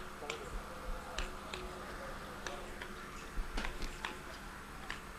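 Quiet hall ambience: a low steady hum with faint, irregular clicks and light knocks scattered through it.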